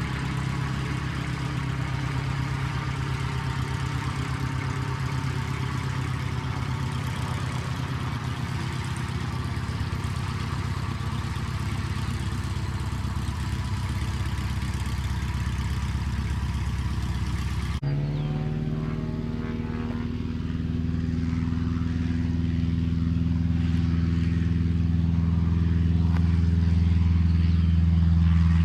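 Cessna 150's four-cylinder Continental O-200 engine and propeller running at low taxi power as the plane rolls past. After an abrupt cut about two-thirds of the way in, the engine is at takeoff power, growing steadily louder as the plane accelerates down the runway.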